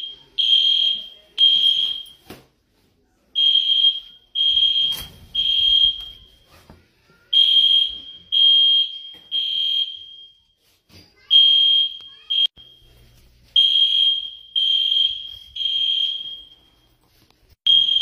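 Building fire alarm sounding its evacuation signal: three loud, high-pitched beeps, then a short pause, the group repeating about every four seconds, the temporal-three pattern. Faint knocks sound between the beeps.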